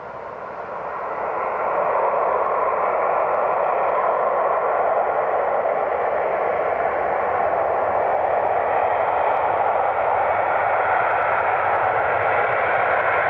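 Boeing 747's four jet engines at high power as the jet rolls down the runway, a steady roar that builds over the first couple of seconds and then holds.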